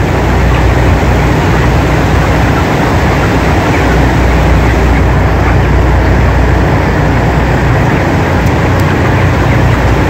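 Large exhaust ventilation fans of a broiler house, nine of them running together: a loud, steady drone with a strong low hum under an even rushing noise.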